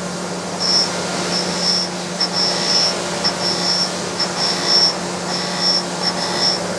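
Surface grinder running with a steady hum while its wheel grinds the end of a shaft turned by hand in an indexing fixture; the high-pitched grinding hiss comes and goes about once a second as the part rotates against the wheel. The broken-up contact is the sign that the shaft end has not yet cleaned up all the way.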